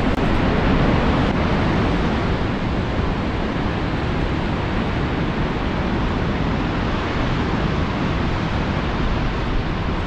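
Steady rushing roar of the Vøringsfossen waterfall plunging into the gorge below.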